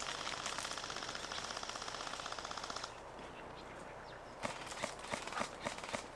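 Airsoft gun firing full-auto in one long rapid burst that stops about three seconds in. A second and a half later, a scatter of sharp, irregular clicks follows.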